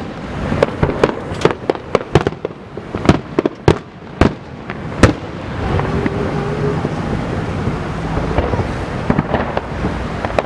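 Aerial fireworks bursting: a quick run of sharp bangs and cracks for about the first five seconds, then only a few scattered bangs.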